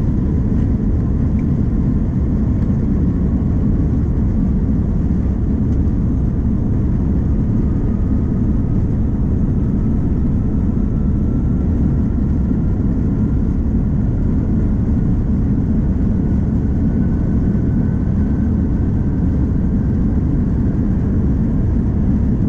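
Steady, loud low rumble of a vehicle in motion, with a faint whine that rises slowly in pitch throughout.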